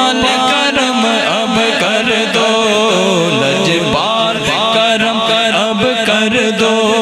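Urdu devotional naat singing: a voice drawing out a long, gliding melodic line over a steady held drone, with regular percussive beats.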